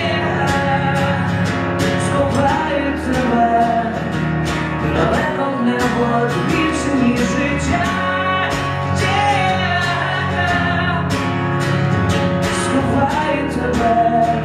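Acoustic guitar strummed in a steady rhythm, with a man's voice singing over it into a microphone in a live solo performance.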